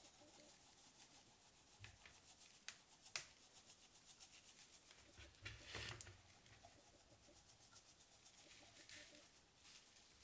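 Faint handling sounds of a dry spice rub being shaken from a shaker onto raw meat and rubbed in by hand: soft rustling with a few light clicks, and a brief louder rustle about six seconds in.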